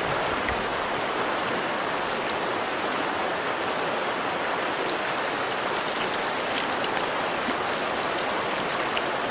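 Shallow stream riffle running steadily past a wading angler. In the second half there are a few brief splashes from a hooked brown trout thrashing at the surface.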